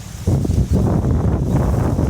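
Wind buffeting the microphone, a loud low rumble that gusts up about a quarter of a second in and keeps on.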